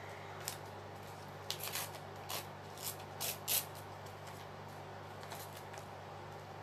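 Paper scraps rustling and crinkling as hands sort through them, in a handful of short crackles clustered between about one and four seconds in, over a steady low hum.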